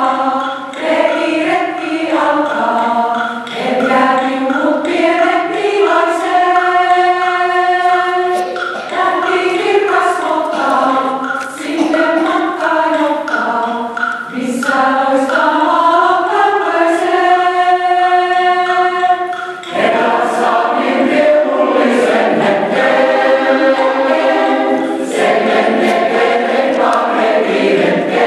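Mixed choir of men's and women's voices singing in close harmony, moving in phrases, with two long held chords partway through.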